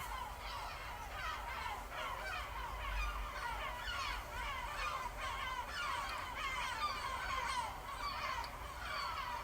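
Recorded seagull soundscape: many gulls calling at once, a dense chorus of short, overlapping falling cries.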